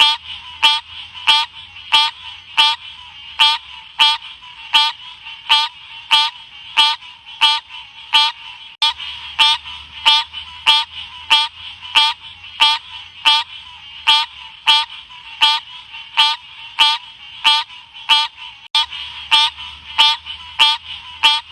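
Green cascade frog (Odorrana livida) calling: short, high-pitched calls repeated at an even pace, about three every two seconds, over a steady high background chorus.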